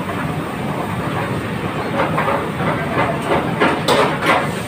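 Commercial kitchen noise: a steady rushing hiss with metal utensils and pans clattering from about two seconds in.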